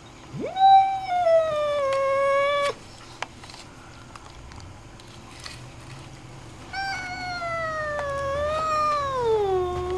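Grey domestic cat giving two long, drawn-out angry yowls, each jumping up in pitch and then sliding slowly down. The first breaks off sharply after about two seconds; the second starts near the end and is still falling.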